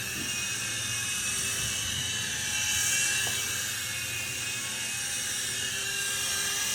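Electric rotor motors of a small infrared toy helicopter, the GPToys Durant X-Copter, whirring with a steady high whine in flight.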